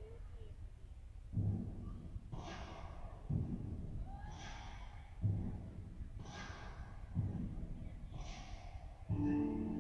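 Slow breathing close to the microphone, an in-and-out about every two seconds. Near the end, music starts.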